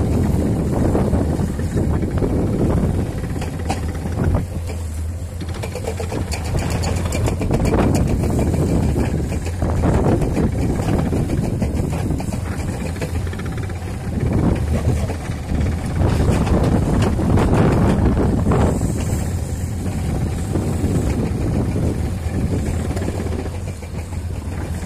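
Wind buffeting the microphone over the steady low running of heavy diesel equipment: an excavator loading rock into a dump truck, with dump trucks working the road bed.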